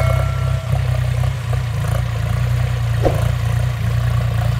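Iseki 35 tractor's diesel engine running steadily under load as it pulls a six-disc plough through dry soil.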